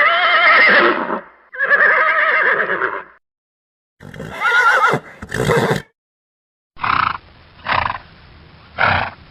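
Horse neighing: two long whinnies one after the other, a shorter wavering whinny about four seconds in followed by a short noisy blow, then three short, breathy bursts near the end.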